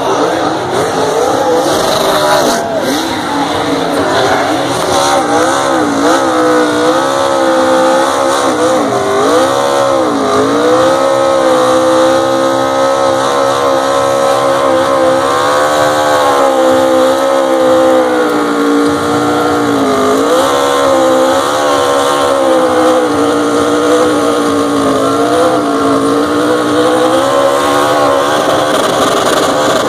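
NASCAR Xfinity stock car's V8 engine held at high revs during a smoky burnout, the revs wavering up and dipping several times as the tyres spin.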